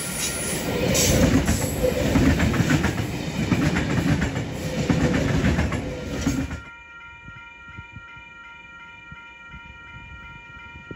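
A train passing close by, its wheels clattering over the rails with a loud rumble. The sound cuts off abruptly about six and a half seconds in, leaving a quieter steady whine of several held tones.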